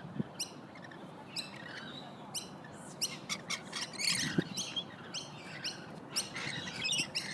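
Lorikeets chattering: many short, shrill chirps and screeches, sparse at first and much busier from about three seconds in.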